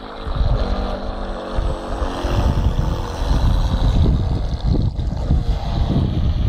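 Battery-powered QMD Spurt 3 RC speedboat running fast across the water, its electric motor giving a steady whine for the first couple of seconds. From about two seconds in, heavy wind buffeting on the microphone is the loudest sound.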